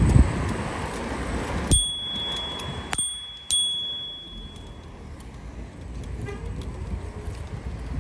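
Scooter's handlebar bell rung three times, three sharp dings that ring on briefly, over wind and road noise from riding.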